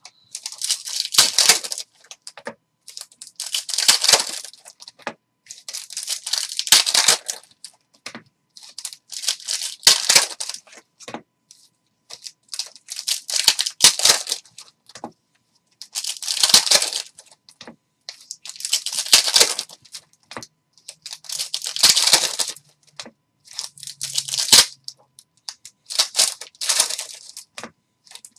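Foil hockey card pack wrappers being torn open and crinkled one after another, a crinkly ripping burst about every two to three seconds, about ten in all.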